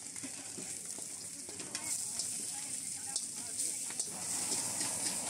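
Food frying in a street-stall wok: a steady sizzle with repeated sharp clinks and scrapes of a metal spatula against the wok, coming more often from about two seconds in.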